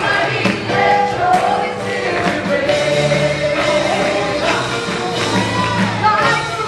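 A live gospel-style worship song: several singers on microphones sing held, sliding melody lines over instrumental backing.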